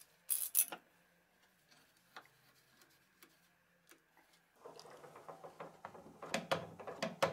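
Metal F-clamp being fitted and tightened on a wooden fence: a couple of sharp clicks about half a second in, then a run of quick light clicks and scrapes in the second half as the screw handle is turned.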